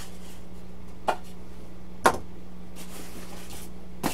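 Styrofoam packing pieces and shipping box being handled: three short, light knocks, the loudest about two seconds in.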